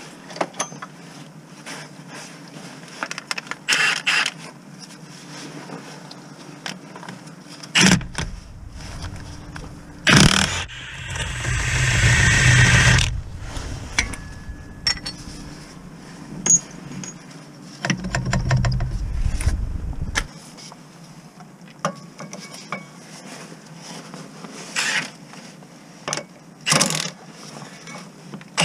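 Hand tools and bolts clinking and scraping against metal on a car's gearbox and engine mounts, as scattered light clicks and knocks. A louder stretch of scraping and handling noise lasts about three seconds, starting about ten seconds in.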